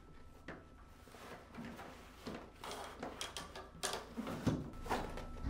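Two-part carbon-fibre kayak paddle sections being slid down into a fabric backpack: fabric rustling and scraping, with a few light knocks as the pieces go in.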